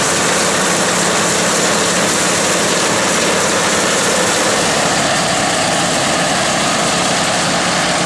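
Kubota M7040 tractor's diesel engine and the Allis-Chalmers pull-type combine it tows, running steadily while harvesting rice: an even engine hum under a dense rushing noise from the combine's threshing works.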